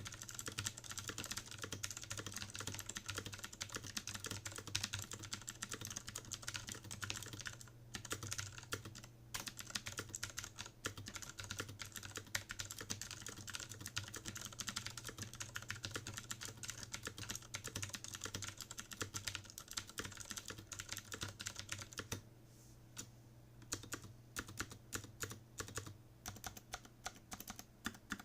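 Fast typing on a CM Storm QuickFire Rapid mechanical keyboard with Cherry MX Milk switches and PBT keycaps: a dense, continuous run of key strokes. It breaks off briefly about 22 seconds in, then resumes as more spaced-out strokes.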